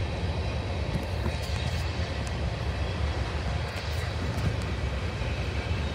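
A train running, a steady low rumble, with a few faint sharp clicks about a second in and again around four seconds in.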